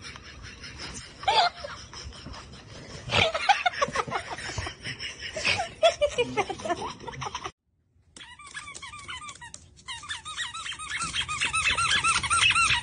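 A dog making high, squeaky whining sounds that rise and fall in pitch, with a person laughing. After a brief silent break, a fast, steady run of repeated high squeaks that grows louder.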